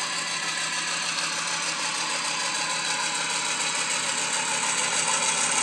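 Simulated Class 56 diesel engine sound played by the Cavalex model locomotive's factory-fitted ESU sound decoder through its onboard speaker, running steadily under power and growing gradually louder as the model comes closer.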